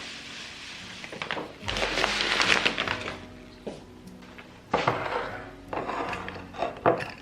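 Soft background music over the handling of groceries: a rustle about two seconds in, then several knocks and light clinks of items being set down.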